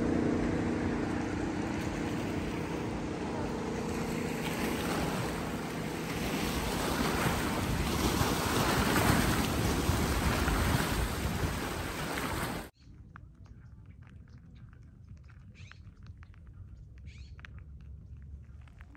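A passing motorboat's engine hum fading away over the first few seconds, followed by the wash of its wake on the rocky bank and wind on the microphone. About 13 seconds in the sound cuts abruptly to a much quieter stretch with faint ticks.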